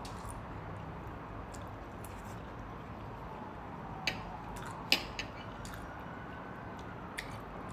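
Eating sounds: cutlery clicking against a plate a few times, the sharpest about five seconds in, with quiet chewing between. A faint siren wails slowly up and down in the background.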